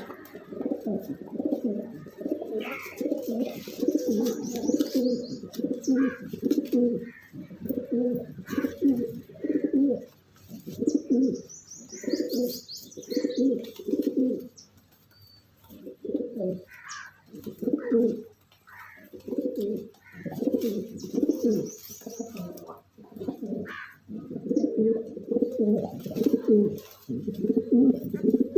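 Domestic pigeons cooing over and over in low, rolling phrases with short pauses between them. Higher, thin chirping joins in a few times.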